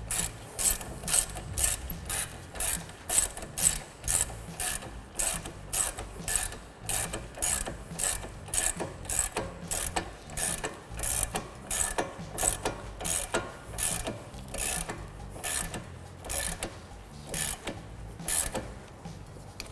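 Ratchet wrench with a 19 mm socket clicking as it runs a brake caliper bracket bolt down snug, in a steady rhythm of about two to three clicks a second.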